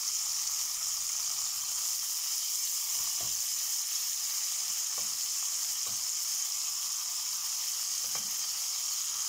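Green peppers frying in hot oil in a pan, a steady high sizzle. A few soft taps along the way as tomato slices are laid into the pan.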